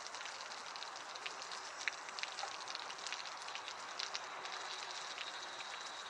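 Water from an outdoor shower falling on a metal detector held under it and on the wet paving: a faint steady hiss dotted with many small droplet ticks.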